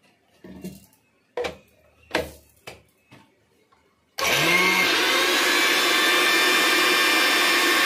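A few knocks and clicks as the lid is pressed onto the steel mixer-grinder jar and the jar is set on its base. About four seconds in, the Flipkart mixer grinder's motor starts, rising quickly in pitch to a loud, steady whine as it blends watermelon chunks with sugar and water.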